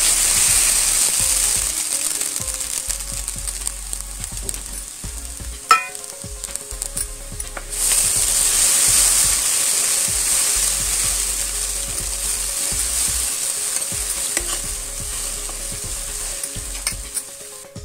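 Wet sira batter sizzling loudly in hot desi ghee in a steel kadhai as it is poured in and stirred. The sizzle fades, then swells again about eight seconds in and slowly dies down. There is one sharp knock about six seconds in.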